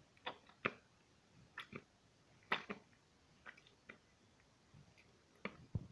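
A nearly empty squeeze container being forced out, giving about ten short, irregular squelches and clicks as the last of the contents sputters out.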